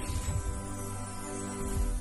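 Music for an animated logo sting: held tones with a deep low hit about a third of a second in and another near the end.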